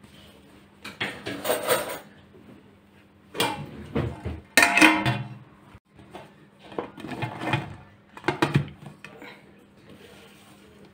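A stainless steel cooking pot and a round metal serving tray clattering and scraping against each other as the tray is laid over the pot and the pot is turned upside down onto it. The sound comes in several bursts, the loudest a little before halfway through.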